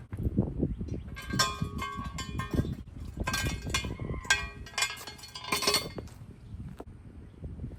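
Metal hand tools and steel suspension parts clinking and clattering, with irregular knocks and several short ringing clinks, busiest from about one to six seconds in.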